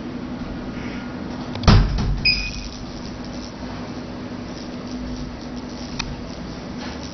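Steady low hum from a cavitation slimming machine running with water on its handpiece. A knock comes about two seconds in, then a short electronic beep, and there is a sharp click near the end.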